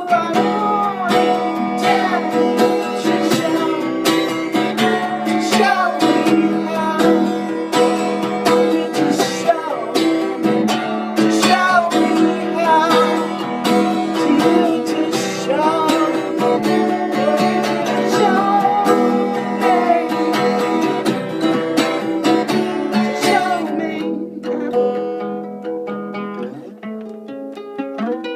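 Song's instrumental break: acoustic guitar strumming steadily with a melody line sliding and bending over it. About 24 seconds in, it thins out to lighter, quieter playing.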